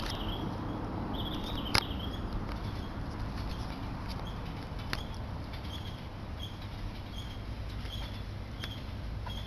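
Short high chirps repeating about twice a second, after a longer warbling call near the start, over a steady low rumble. A sharp click sounds about two seconds in.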